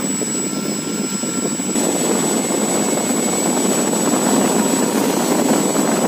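Drone brushless (BLDC) motor spinning a large two-blade propeller at low throttle as a makeshift table fan: a steady whoosh of air from the blades with a thin high whine, filling out and getting a little louder about two seconds in.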